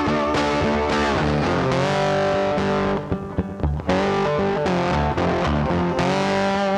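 Background music: distorted electric guitar with bass, with sliding notes and a short break about three seconds in.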